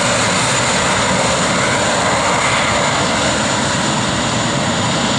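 Airbus A320-211 jet airliner's CFM56 turbofan engines during landing: a steady, loud rush of jet noise with a faint high whine, unchanging throughout.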